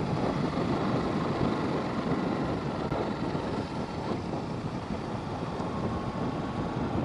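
A motorcycle running at steady cruising speed, with its engine and the rush of wind over a bike-mounted camera's microphone making one even noise.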